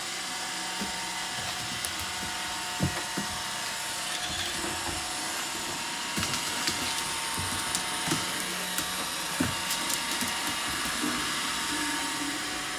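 Roomba robot vacuum running with a steady whir and a thin hum, with several short knocks scattered through, the loudest about three seconds in and again about nine seconds in.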